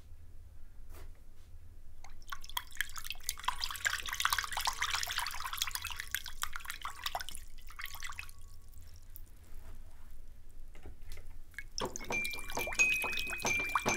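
A dense patter of small clicks and crackles, like dripping, swells about two seconds in and fades away. Near the end, bright metallic toy piano notes come in.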